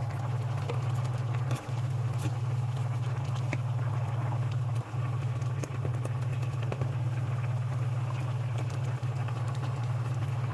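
A cat purring steadily, with a few brief breaks.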